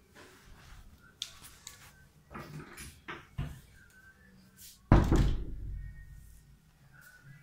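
A few scattered knocks and clicks, then one loud, deep thud about five seconds in that rumbles away over a second or so.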